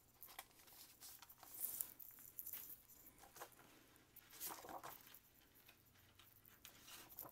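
Faint rustling of a clear plastic sleeve and a folded paper poster being handled and unfolded by hand, a few soft scratches and crinkles spread through a mostly quiet stretch.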